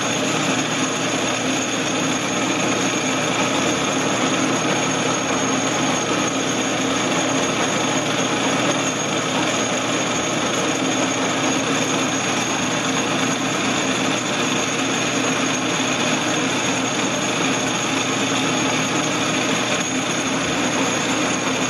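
Craftsman (Atlas-built) metal lathe running steadily, turning a metal bar between centers on a cut that brings it down to its final diameter.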